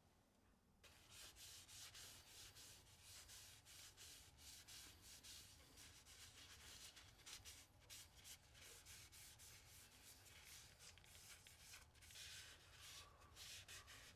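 Faint rubbing of a cloth rag over a turned maple and padauk wooden handle: quick, repeated wiping strokes that start about a second in.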